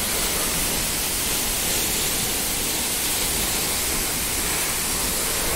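A tall waterfall pouring down onto rocks close by: a steady, even rush of falling water.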